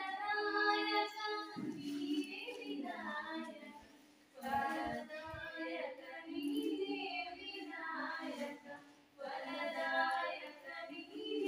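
A small group of young women singing a song together without accompaniment, in held phrases with short breaks between them.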